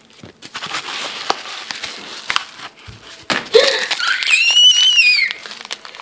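Paper and plastic packaging rustling and crinkling as a mailer is torn open and a zip bag of tongue rings pulled out. From about four seconds in, a woman's high-pitched excited squeal, rising then falling over about a second.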